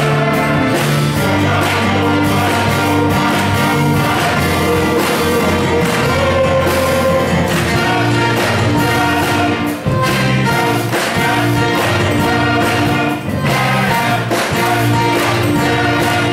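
A live church band plays a gospel song: electric bass, electric guitars, keyboard and brass including a trombone, with voices singing.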